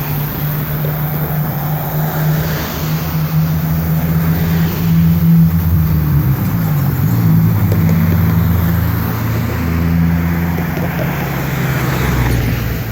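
Road traffic going by on the highway: car engines humming and tyre noise swelling and fading as several vehicles pass.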